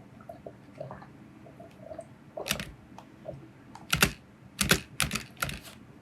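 Computer keyboard keys tapped, several irregular sharp clicks, a few close together in the second half.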